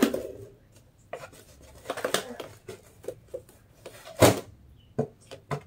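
Hands crumpling and pressing a thin fabric hat over a wicker basket: scattered rustles and small crackles, with one sharper knock about four seconds in.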